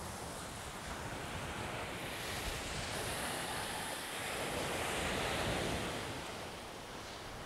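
Surf washing onto a sandy beach, with wind rumbling on the microphone. The wash swells louder a few seconds in, then eases off.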